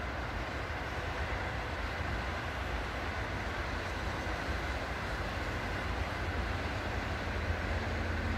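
Steady rumble and hiss of distant motorway traffic. Near the end a faint steady hum sets in as an NS Koploper (ICM) electric train approaches from far off.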